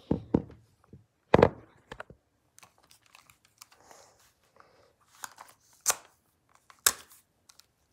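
Phone being handled close to its microphone: irregular knocks and clicks with faint rustling between them, the loudest knock about a second and a half in.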